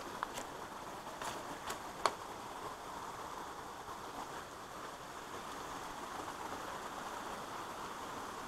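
Steady rush of water from a rocky creek with small cascades, broken by a few sharp clicks in the first two seconds.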